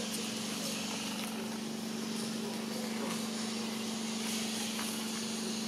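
A steady mechanical hum: one constant low drone over an even hiss of background noise, unchanging throughout.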